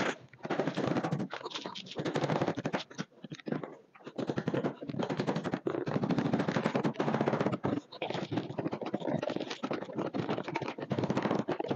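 Rapid clicking and rattling in bursts of a second or two as the metal latch clips of a plywood shipping crate are worked open and the crate cover is lifted off.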